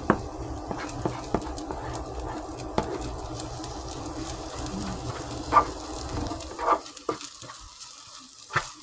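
Spatula scraping, stirring and turning scrambled eggs in a nonstick frying pan over a light sizzle, with a few sharp taps of the spatula against the pan.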